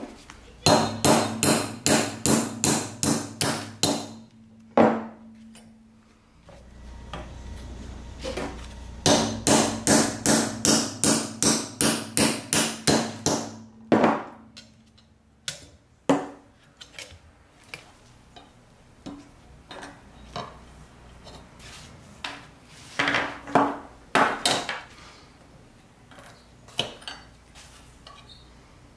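Hammer striking metal on a small anvil in two quick runs of sharp blows, about three a second, each with a short metallic ring, as the pins holding the brass plate on an antique carpenter's square are driven out. Later come scattered lighter taps and clicks.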